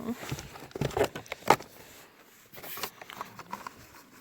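Product packaging being handled: scattered rustling and a few sharp clicks, the sharpest about a second and a half in.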